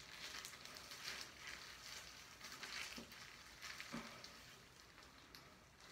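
Faint crackling rustle of a black rubber-gloved hand working hair bleach through hair.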